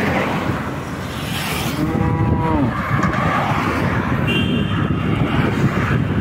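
Steady wind rush and road noise from riding along a road. About two seconds in, a cow moos once, in a single call that rises and then falls.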